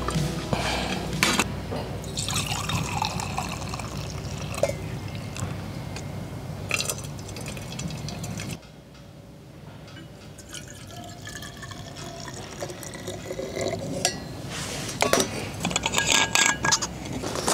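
Water being poured into a container and filling it, in two spells separated by a sudden drop in level about eight and a half seconds in, with a few sharp clinks near the end.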